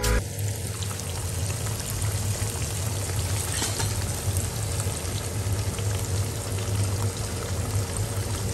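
Coated fish pieces deep-frying in hot oil: a steady bubbling sizzle with small crackles, over a low steady hum.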